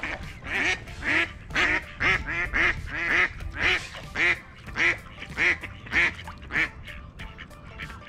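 Waterfowl calling: a run of about a dozen loud, nasal calls, roughly two a second, that stops about two-thirds of the way through.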